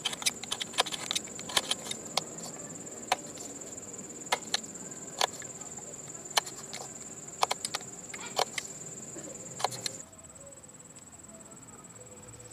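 A steady, high-pitched insect trill throughout, with irregular sharp clicks and taps over it that stop about ten seconds in.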